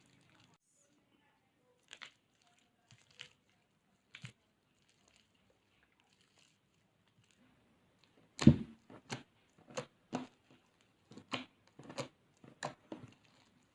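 Floam slime, slime packed with small foam beads, being squeezed and pressed by hand, giving a few faint crackles and then a run of about eight sharp crunchy pops, the first the loudest.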